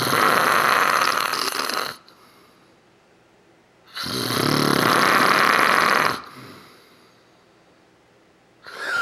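A sleeping man snoring loudly: two long snores of about two seconds each, roughly four seconds apart, with a third beginning near the end.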